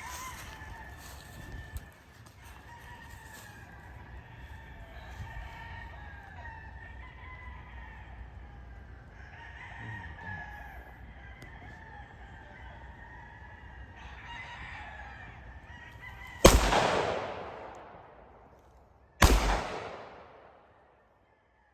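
Two loud gunshots about three seconds apart, each ringing out and fading over a second or two. Before them, chickens cluck faintly in the background.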